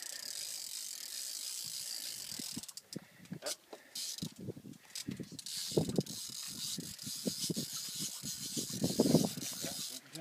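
Fishing reel's drag buzzing as a hooked sturgeon runs and pulls line off the reel: a steady high buzz that breaks off a few seconds in and starts again. Irregular low thumps come in over the second half and are the loudest sounds.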